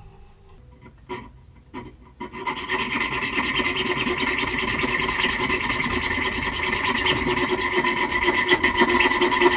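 Half-inch solid steel rod being cut through, a steady, continuous cutting sound that starts about two seconds in after a few short clicks and knocks.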